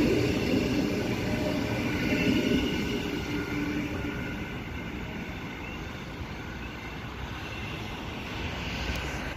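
Six-car Transperth B-series electric train passing through the station at speed and running off down the line, a steady whine over rail noise, fading away.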